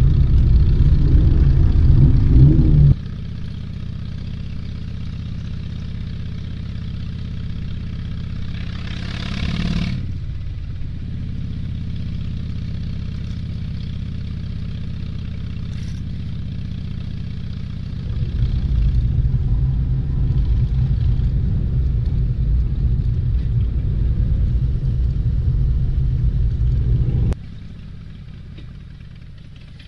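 Motorcycle engines rumbling in a slow procession, heard from inside a following vehicle. The engine sound is much louder for the first few seconds and again through the last third, dropping off suddenly each time, with a brief hiss about a third of the way in.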